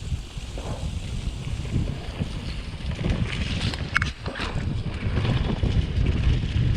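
Wind buffeting the microphone of a camera carried on a mountain bike ride, over a rough rumble and rattle from the trail, growing louder in the second half. A brief high squeak about four seconds in.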